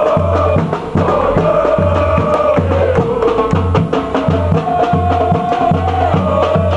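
Crowd of football supporters chanting in unison over a bass drum beating a steady rhythm about twice a second, with sharp clicks and claps scattered through it.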